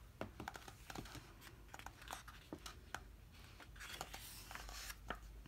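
Faint rustling and small scattered ticks of a glossy photobook's paper pages being handled, with a slightly longer rustle about four seconds in.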